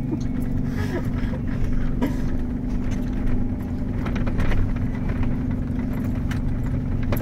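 Jeep Wrangler Rubicon's engine running at a steady pitch, heard from inside the cabin, as the tyres churn through snow on the trail. Scattered short knocks and rattles come through the body.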